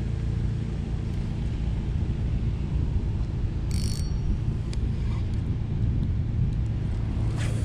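A heavy truck's diesel engine running steadily nearby: an even low rumble. A short high chirp about four seconds in, followed by a few faint clicks.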